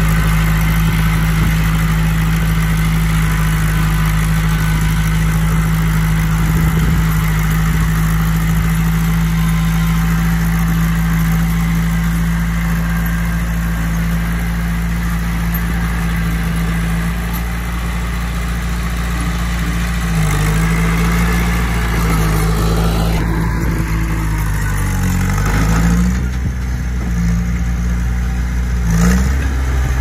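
Mini bulldozer's engine running at a steady pitch, then dipping and picking back up several times in the last ten seconds as it takes load.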